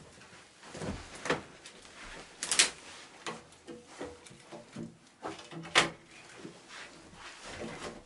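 Irregular knocks and clatter of wood against a small metal wood stove as kindling is loaded into its firebox, with quieter rustling in between. The sharpest knocks come about two and a half and six seconds in.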